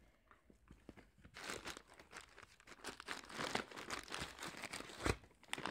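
A dog rummaging with her nose in a bag and at a crinkly foil snack packet: irregular crinkling and rustling that starts about a second in, with a soft thump near the end.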